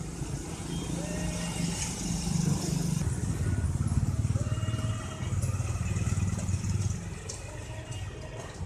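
Tabby mother cat purring up close while her newborn kittens nurse: a steady low rumble that swells and eases with each breath.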